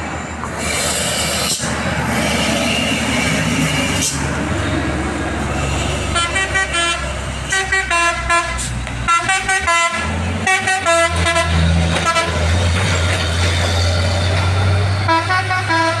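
Telolet multi-tone truck horn playing quick runs of short musical notes, in bursts from about six seconds in and again near the end. Underneath is the low, steady drone of a diesel truck engine pulling up the incline, with traffic passing before the horn starts.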